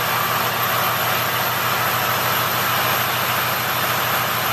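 A 6.0-litre Power Stroke V8 diesel in a 2006 Ford F-250 idling steadily through a 4-inch straight-pipe exhaust.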